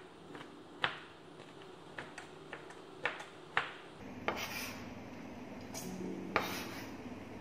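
Kitchen knife tapping and scraping chopped chocolate across a wooden cutting board, a handful of separate sharp knocks, with a louder clink of the blade on a stainless steel bowl about six seconds in.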